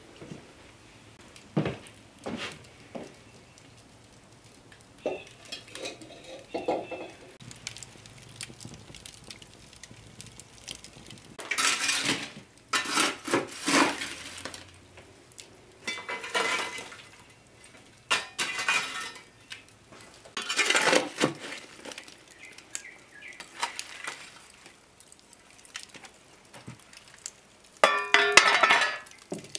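Iron hearth shovel scraping up embers and tipping them onto the lid of a cast-iron Dutch oven, heard as rough scrapes and clinks of coals on iron every couple of seconds. The coals are being heaped on the lid to bake the pie inside.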